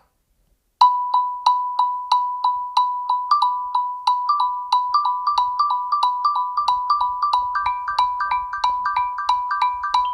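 Google Pixel 9 ringtone in a marimba-like mallet tone, played on the phone's speaker. It starts after a brief silence with a quick, evenly repeated single note, and higher notes join in as the pattern builds.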